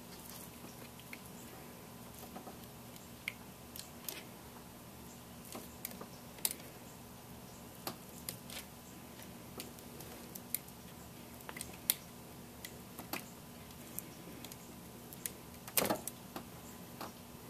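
Irregular light clicks and ticks, a few louder ones among them, the loudest about sixteen seconds in, over a faint steady hum.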